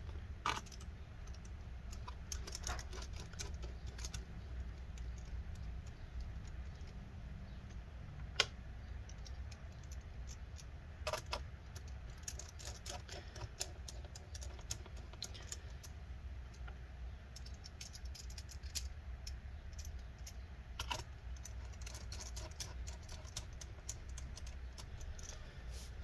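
Irregular small clicks and ticks of a Torx T5 precision screwdriver turning screws into a laptop's metal bottom cover, with light knocks from hands handling the case, over a steady low hum.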